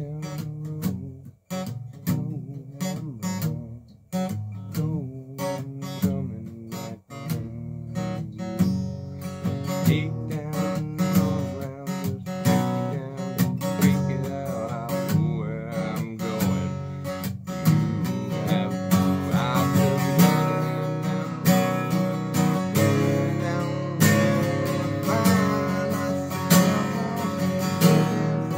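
Acoustic guitar played solo, an improvised riff of picked notes and strums. The playing is sparse with short gaps at first, then fuller and a little louder from about eight seconds in.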